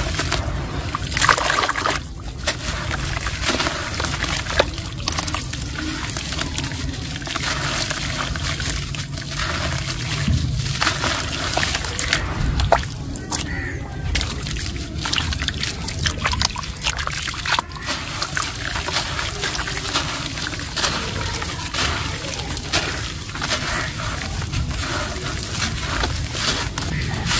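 Soft, dusty cement lumps crushed by hand and crumbling into a basin of water: steady splashing and sloshing as powder and crumbs fall in, with scattered small crunches.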